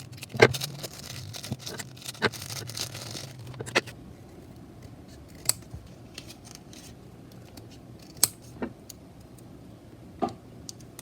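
Hands handling small objects and packaging: light rustling for the first few seconds, then a handful of sharp, separate clicks and taps spaced a second or more apart.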